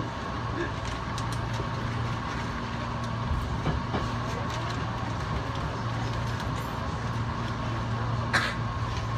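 Hankyu electric train running along the track, heard from inside the front car: a steady running hum with a constant whine and wheel noise on the rails, a few light clicks, and one sharp click about eight seconds in.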